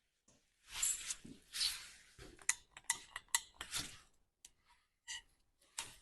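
Small metal objects being handled: a scattered run of light clinks and knocks with some brief rustling, starting about a second in.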